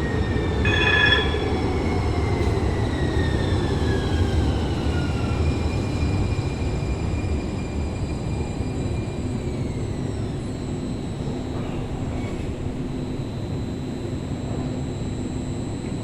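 Muni Metro light-rail train in the underground station: a steady low rumble with thin electric whines that slide down in pitch, and a brief high-pitched sound about a second in.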